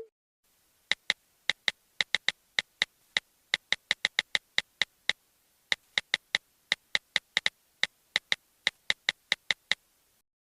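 Phone keyboard typing sound effect: a rapid, irregular series of identical short clicks, about three to five a second, stopping shortly before the end.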